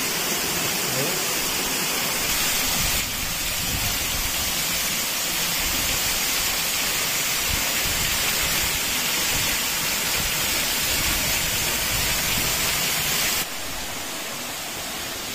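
Waterfall: a steady rush of falling water, dropping abruptly to a quieter rushing sound about thirteen seconds in.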